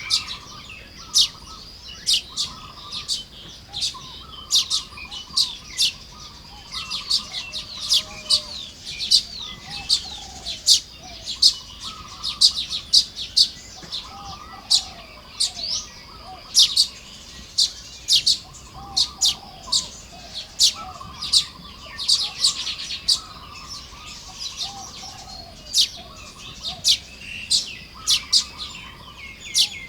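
Baya weavers chirping and chattering as they build their nests: a dense, irregular run of short, sharp chirps, with softer, lower warbling phrases mixed in.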